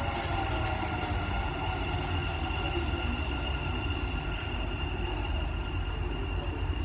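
Dubai Metro train running on its elevated track, heard from inside the car: a steady low rumble with a high whine held over it.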